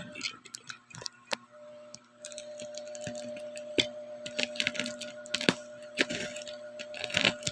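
Sharp clicks and crackles of a heavily wrapped parcel being handled and unwrapped, coming thicker in the second half, over a steady faint hum.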